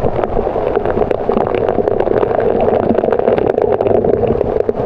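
Waterfall pouring, a loud steady rush of water with crackling splashes throughout.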